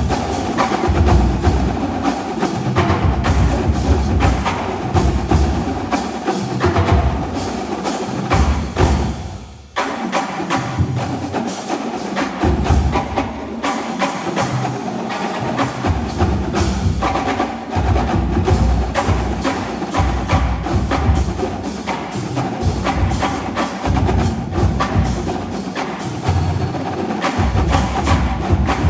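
Marching drumline of snares, tenor drums and bass drums playing a fast, dense passage with heavy low bass-drum notes. The whole line stops sharply about nine and a half seconds in, then comes straight back in.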